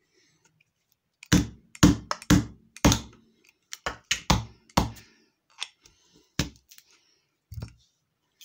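About a dozen hard, irregular thuds and knocks of blows on a small yellow Sony speaker's plastic casing. They come in quick clusters during the first five seconds, then three weaker knocks, some strikes leaving a short low hum.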